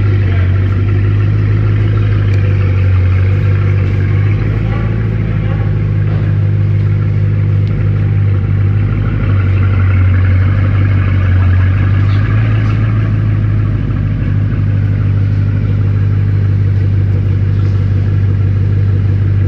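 Bugatti Divo's 8.0-litre quad-turbo W16 engine running near idle: a steady low drone with small shifts in pitch.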